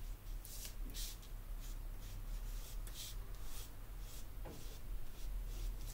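A small teardrop-shaped ink pad dabbed and rubbed across paper to spread stamp ink: a series of soft, scratchy strokes over a low steady hum.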